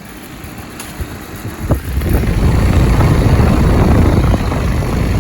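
Philco heat pump outdoor unit running in heat mode, its condenser fan moving air and its scroll compressor running. The sound jumps to a much louder, rougher rush about two seconds in.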